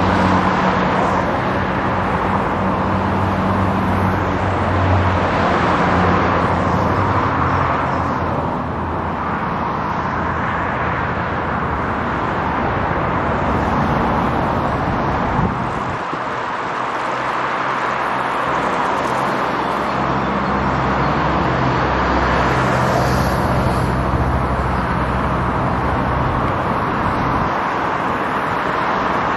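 Steady road traffic on a busy city street: a continuous rush of tyres with the low hum of passing engines, easing briefly about halfway through.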